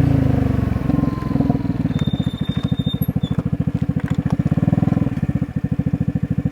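Vespa GTS 250's single-cylinder four-stroke engine dropping back to idle and then idling with an even, fast pulsing exhaust beat.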